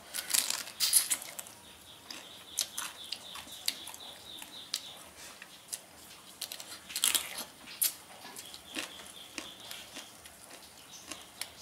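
Cooked river crab being bitten and chewed, its shell cracking and crunching in short sharp bursts, thickest near the start and again about seven seconds in.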